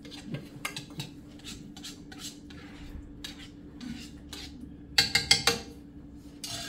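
A metal spoon scraping and clinking in a skillet as a wine and lemon sauce is stirred, with a quick run of louder clinks about five seconds in.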